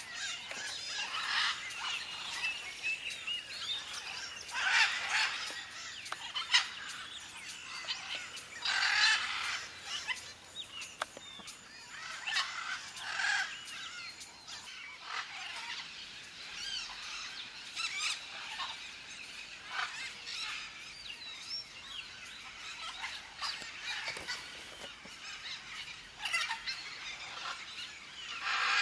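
A flock of parrots, macaws among them, calling over and over in bouts every few seconds around their nest holes in dead buriti palm trunks.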